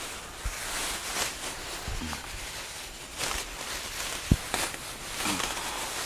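Plastic bags rustling and crinkling as they are handled and packed, with a sharp knock about four seconds in.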